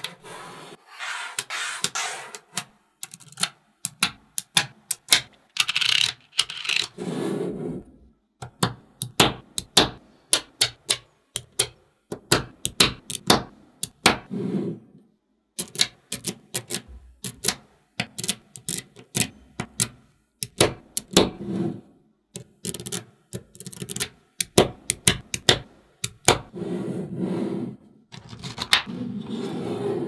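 Small magnetic balls clicking sharply as they snap together, many quick irregular clicks, sometimes in rapid clusters. Between them come a few stretches of balls rubbing and rolling against each other as sheets of them are handled.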